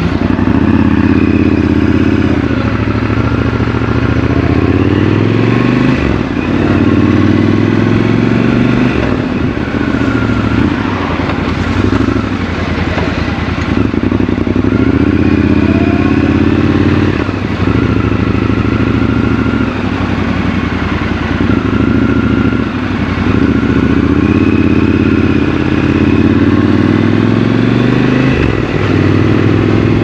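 Triumph Scrambler 1200 XC's 1200 cc parallel-twin engine, close up from the rider's seat, accelerating and easing off again and again: its pitch climbs through each gear and drops back at every shift.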